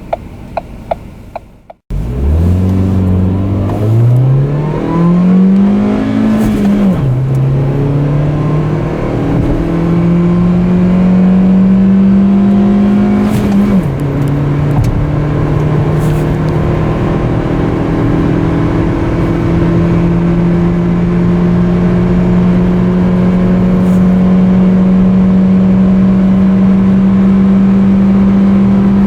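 A few light clicks, then the small 1.25-litre four-cylinder petrol engine of a Ford Fiesta pulls hard from a standstill, its pitch rising steeply. The pitch drops sharply at each of two gear changes, then the engine holds a long, slowly rising pull in the next gear: a full-throttle 0-100 km/h run.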